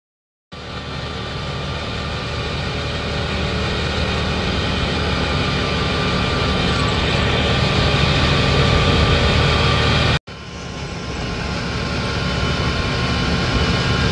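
Off-road buggy's engine and driving noise heard from on board, starting about half a second in and growing steadily louder as it gathers speed. It breaks off for an instant about ten seconds in, then starts again and builds once more.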